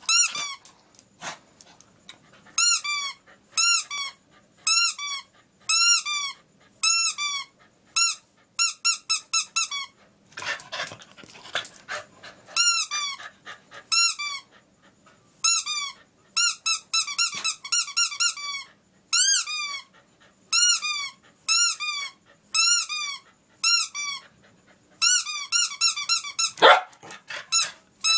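Rubber squeaky toy shaped like a spiky porcupine squeezed over and over, giving quick runs of short squeaks, each rising then falling in pitch. A brief rustling scuffle about a third of the way in, and one louder, harsher sound near the end.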